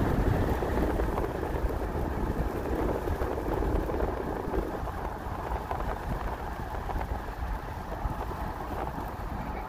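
Steady rumble of tyre and wind noise heard inside a moving vehicle, easing a little after about five seconds.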